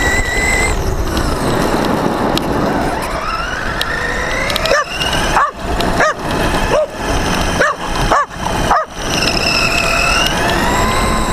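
Electric RC car's brushless motor (Team Orion R8 Vortex 1950 kV) whining and rising and falling in pitch with the throttle, over tyre noise on gravel. From about four and a half seconds in, a dog barks repeatedly, about seven quick barks over some four seconds, before the motor sound carries on alone.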